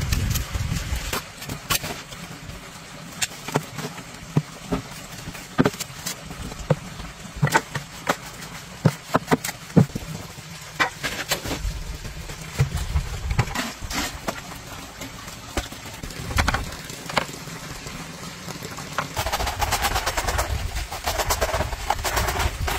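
Hand shovel working a sand-and-cement mix: irregular sharp knocks and scrapes of the blade against the mix and the wooden box, over an intermittent low rumble, with rougher scraping near the end.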